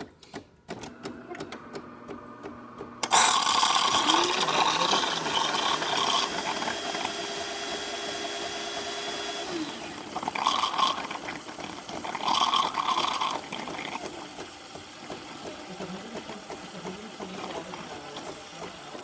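DeLonghi Magnifica espresso machine steaming milk: its vibratory pump buzzes and the steam wand hisses steadily with a thin whistle, starting about three seconds in, with two louder spurts about halfway through before it settles down.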